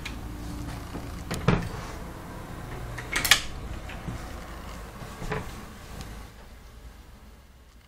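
A few knocks and clatters of interior doors and fittings being handled in a mobile home, three in all, the loudest about three seconds in. Under them a low rumble fades away near the end.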